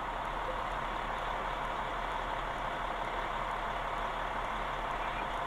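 A vehicle engine idling steadily, with a constant low hum underneath.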